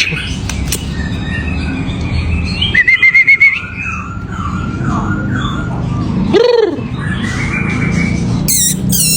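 White-rumped shama (murai batu) singing a varied song: a rapid trill about three seconds in, a run of short down-slurred whistles, a loud swooping low note about six and a half seconds in, and quick high notes near the end.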